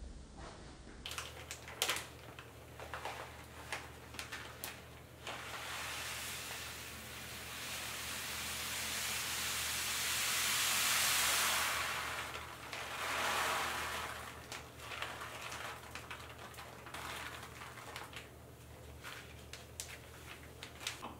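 Uncooked rice poured from a plastic bag into a glass storage jar: a hiss of falling grains that swells to its loudest in the middle, then a second shorter pour. Rustling and light clicks from handling the bag come before and after the pour.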